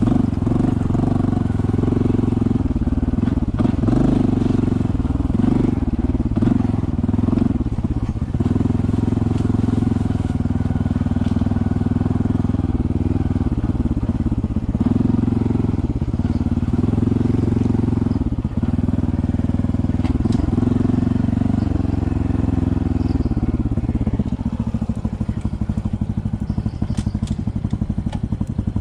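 Honda CT125's single-cylinder engine running at low speed, the throttle repeatedly opening and easing off every second or two. Near the end it settles to a quieter, lower note.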